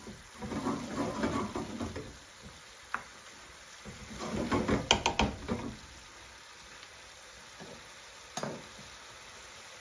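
A long spoon stirring and scraping a chicken curry mixture round a metal pan in two spells, with the wet food sizzling, a single knock between them and a clack near the end as the spoon is set down in the pan. A faint steady hiss sits underneath.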